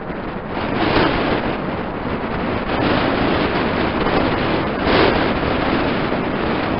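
Wind buffeting the camera's microphone: a loud rushing noise that swells in two stronger gusts, about a second in and again about five seconds in.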